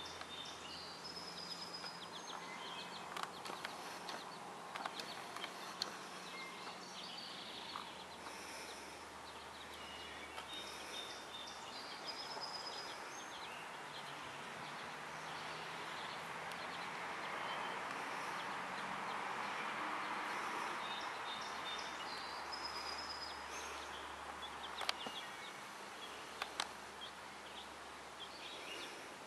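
Young chicks peeping in short, high chirps scattered throughout, over a steady outdoor background hiss that swells about two-thirds of the way through, with a few sharp clicks.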